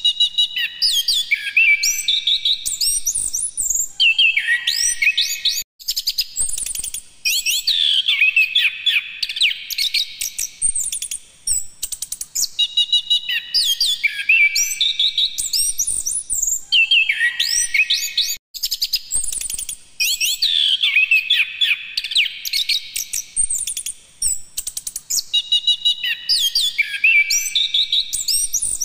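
Chestnut-capped thrush (anis kembang) singing a continuous run of rapid, varied phrases built from quick upward-sweeping whistles, with short breaks between phrase groups.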